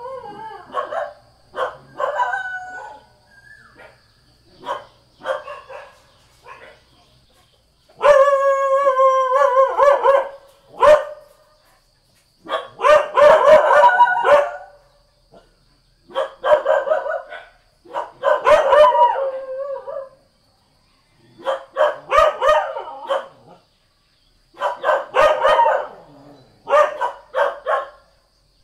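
Village dogs barking in repeated bursts, with longer drawn-out cries of a second or two mixed in between the short barks.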